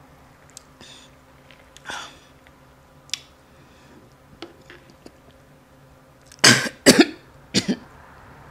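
A woman coughing and clearing her throat, three harsh bursts in quick succession near the end, after swallowing a fish bone.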